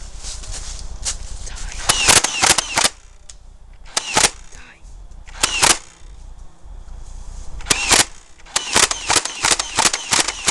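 Nerf Stampede blaster firing: sharp cracking shots in bursts, a few in quick succession about two seconds in, single shots around four and five and a half seconds, then a rapid string near the end.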